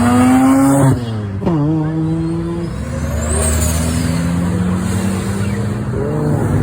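Turbocharged Nissan Skyline engine revving up, then the throttle closes about a second in and the revs fall with turbo flutter. The engine then runs steadily, with a high whistle rising and falling about three seconds in and a short rev blip near the end.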